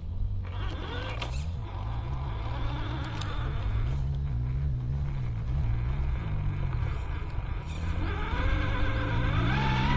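Electric motor and gear drive of an RGT EX86190 1/10 RC 4x4 crawler whining as it is driven, the pitch rising and falling with the throttle and climbing near the end.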